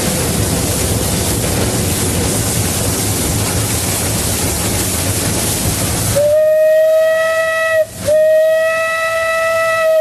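Steam locomotive Ward Kimball heard from its cab, first as a steady rushing noise while it runs. About six seconds in, its steam whistle sounds a single steady note: a short blast, a brief break, then a second blast that holds on.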